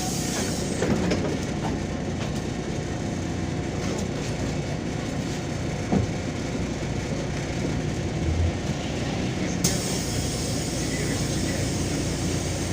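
Inside a MAZ-203 city bus on the move: steady engine and road rumble with a few short knocks and rattles from the body. A brighter hiss joins in about three-quarters of the way through.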